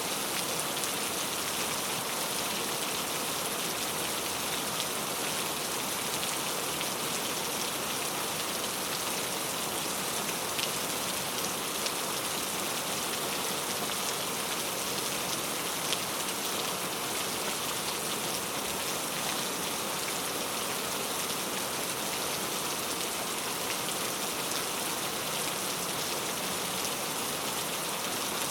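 Steady heavy rain falling, an even hiss of many drops, with a few faint drop ticks.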